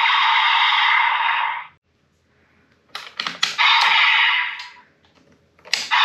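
Electronic sound effects from a Kamen Rider DX toy's small speaker: a loud hissing noise effect cuts off about a second and a half in. A few seconds later comes a quick run of plastic clicks from its buttons or parts, then a second, shorter noise effect, with more clicks and noise starting near the end.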